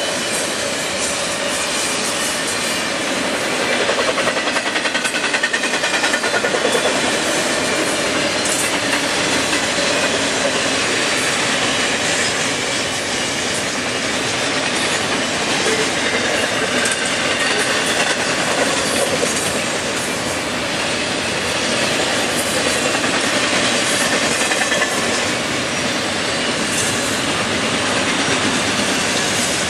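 Double-stack intermodal well cars rolling past, steel wheels clattering rhythmically over the rail joints. The clatter is loudest a few seconds in.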